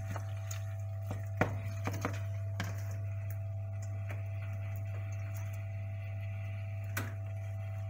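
A wooden spoon stirring macaroni in cheese sauce in a saucepan, with a few light knocks of the spoon against the pan, the sharpest about a second and a half in. A steady low hum runs underneath.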